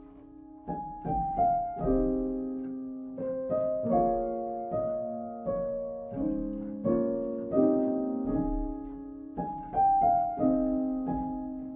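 Soft background piano music: notes struck one after another in a slow melody over a chord, each left to ring and fade.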